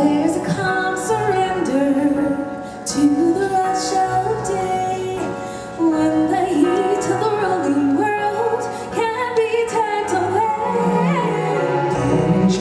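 Music with a solo voice singing a melody over sustained instrumental backing, the voice stepping and gliding between held notes.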